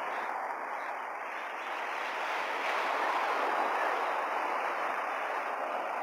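Ocean surf washing against a rocky shore, a steady rush that swells about halfway through and then eases.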